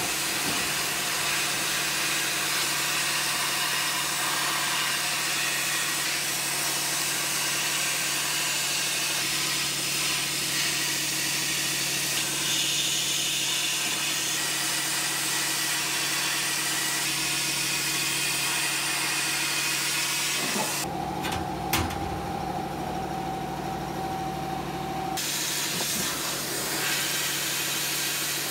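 Sandblasting nozzle in a blast cabinet hissing steadily as abrasive is blasted onto a rusty forged steel C-clamp to strip the rust, over a steady hum. The blast stops for about four seconds about two-thirds of the way through, leaving the hum and a steady whine, then starts again.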